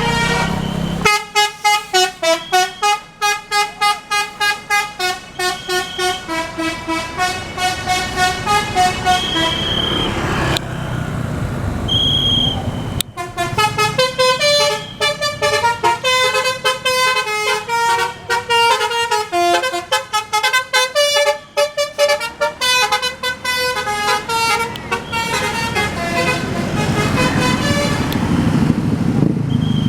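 Bus 'telolet basuri' musical air horn playing quick tunes of short stepped notes, about three a second, in two long runs with a short break between. Bus engine noise fills the gap and the last few seconds.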